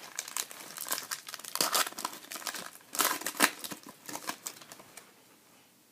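Wrapper of a trading card pack being torn open and crinkled, in a run of quick crackles that die down near the end.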